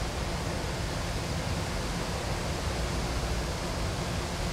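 Steady rushing noise with a low rumble from a distant freight train of autorack cars rolling past.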